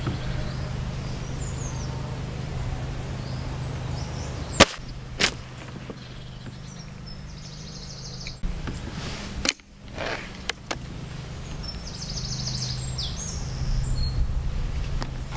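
A .22 BSA Supersport SE break-barrel spring-piston air rifle fires once, a sharp crack about a third of the way in, with a second smaller click about half a second later. More clicks follow, and near the end the barrel is broken open to cock the spring, with a click. A steady low hum and bird chirps sit underneath.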